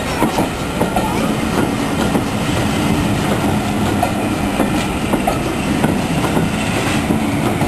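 A train of passenger coaches rolling past close by, its wheels clattering over the rail joints in a steady, continuous run.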